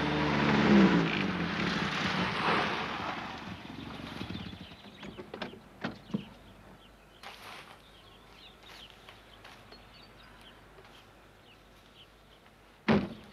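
Vintage car driving up and slowing, its engine and tyre noise fading over the first few seconds, followed by a few faint clicks; near the end a car door slams shut once, loudly.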